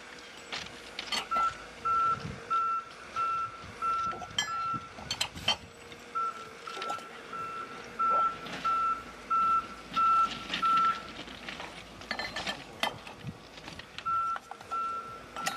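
A work vehicle's reversing alarm beeping steadily, about two beeps a second, in runs with pauses between. Between the beeps come a few sharp metal clinks from a wrench on a rail joint's fishplate bolts.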